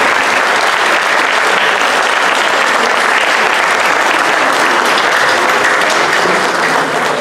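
Concert audience applauding steadily, a dense clapping that eases slightly near the end.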